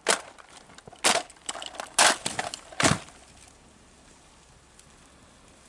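Soldiers' rifle drill movement: about five sharp slaps and clacks of hands striking rifles, spread over the first three seconds.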